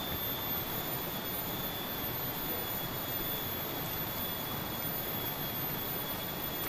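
Steady outdoor background noise, an even rushing hiss, with a thin steady high-pitched tone running through it.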